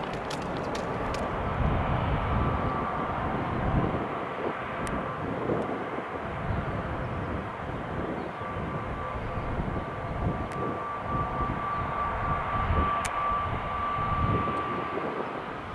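Airbus A321neo's CFM LEAP-1A turbofans running at low taxi power: a steady jet rumble with a thin fan whine over it that fades out about four seconds in and returns a few seconds later.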